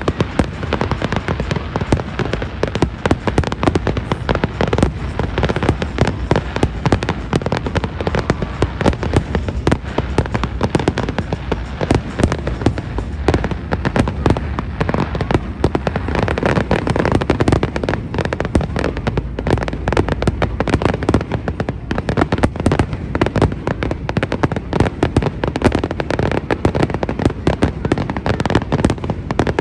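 Fireworks display at full pace: a dense, unbroken run of bangs and crackle from aerial shells bursting several times a second.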